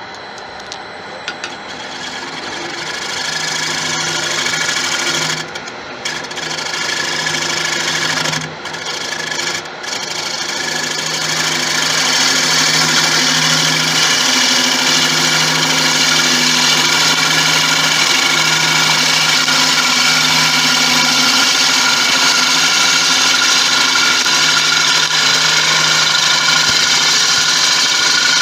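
A lathe tool cutting the outside of a spinning wooden bowl blank: a loud, steady hiss of the cut over the lathe's hum. It breaks off briefly three times in the first ten seconds, as the tool leaves the wood, and stops abruptly at the end.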